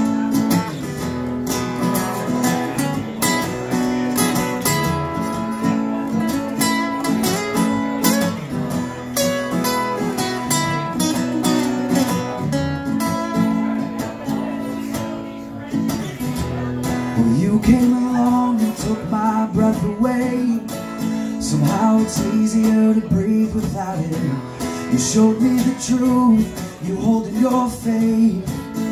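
Two acoustic guitars played live, strumming chords through an instrumental break between verses of a song.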